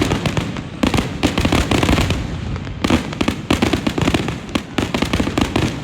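Fireworks display in a dense, continuous barrage: shell bursts and crackling bangs many times a second.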